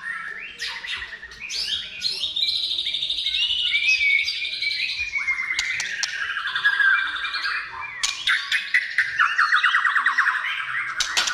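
White-rumped shama singing continuously, a varied run of gliding whistles and rapid trills, with a fast rattling phrase near the end.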